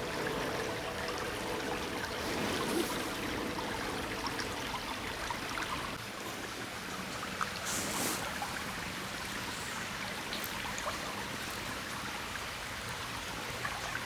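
A small waterfall: steady rushing and splashing of water running over rocks.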